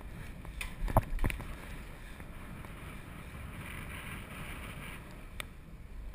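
Wind rushing over a GoPro camera's microphone on a moving bicycle, over a steady low rumble of tyres on pavement, with two sharp knocks about a second in.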